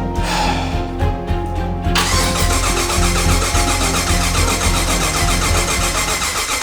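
Background music with a steady beat. About two seconds in, an eight-cylinder engine is cranked over by its starter in an even rhythmic chug but never fires: there is no spark because all eight ignition coil packs are dead.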